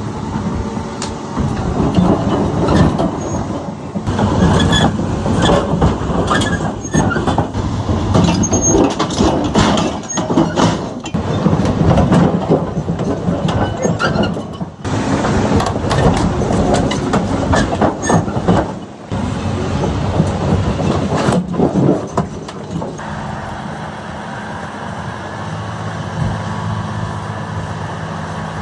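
Large tracked excavator, a Cat 395, running under load with many metallic clanks, knocks and squeals of steel on steel. Near the end the clanking stops and a steady diesel engine drone is left.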